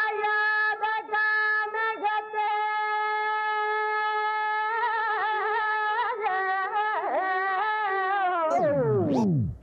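A single long, held wind-instrument note at a steady pitch, broken briefly a few times, wavering in the second half, then sliding steeply down in pitch near the end, as if the recording were slowed to a stop.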